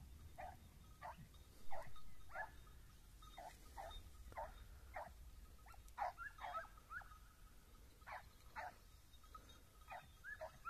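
Hare-hunting hounds giving tongue on a hare's scent: faint, far-off yelping barks in a steady run of two or three a second.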